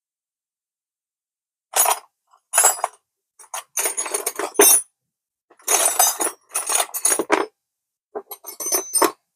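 Metal tools and small parts clinking and rattling against each other in a series of short bursts, starting about two seconds in.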